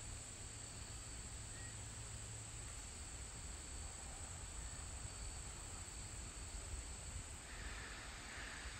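Steady high insect trilling over a low rumble, as of light wind on the microphone. A few brief higher-pitched calls join in near the end.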